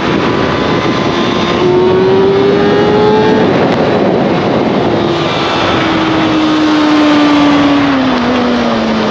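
Motorcycle engine running under way: its pitch rises as it accelerates for about two seconds, then falls away gradually as it slows toward the end, over a steady loud rushing noise.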